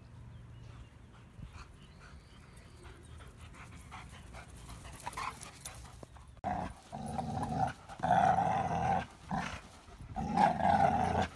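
German Shepherd and American Staffordshire Terrier play-growling while tugging a rope toy between them, in loud repeated growls that start suddenly about six seconds in.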